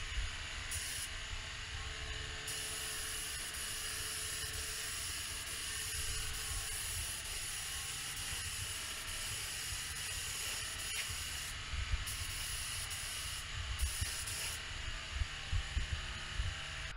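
Gravity-feed spray gun hissing as it sprays clear coat onto a car door. The hiss breaks off briefly a few times near the start and again past the middle as the trigger is released between passes, with a few knocks near the end.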